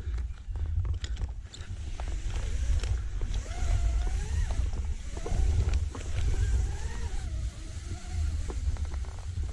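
An engine running with its pitch wandering up and down, under heavy wind rumble on the microphone.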